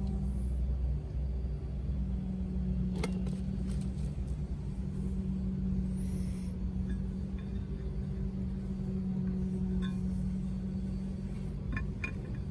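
Steady low mechanical hum with a low rumble beneath it, broken by a sharp click about three seconds in and a few light clinks near the end.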